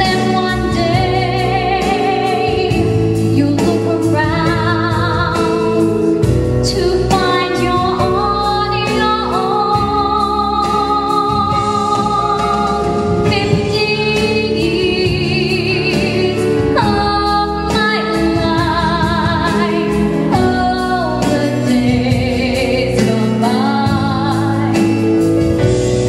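Woman singing a solo into a headset microphone over instrumental accompaniment, with vibrato on her long held notes.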